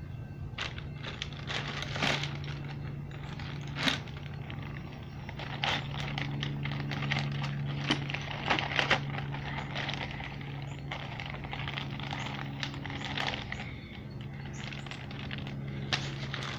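Clear plastic bag crinkling and crackling as it is handled, with the makeup items inside knocking together in many short clicks, over a steady low hum.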